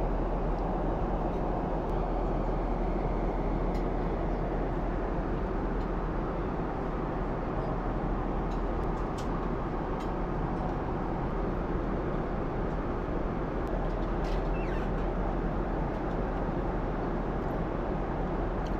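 Steady roar of an airliner cabin in flight: engine and airflow noise, even and unbroken, with a few faint clicks.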